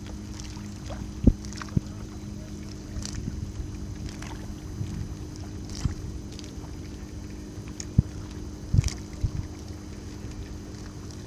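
Water and light wind around a small boat with a steady low hum, broken by a handful of dull knocks on the boat. The loudest knocks come about a second in and again about eight seconds in.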